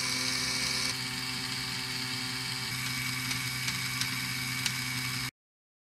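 Small LEGO electric motor running steadily, driving a rubber belt, chain and plastic gears with a steady whirring hum and a few light ticks. It cuts off suddenly near the end.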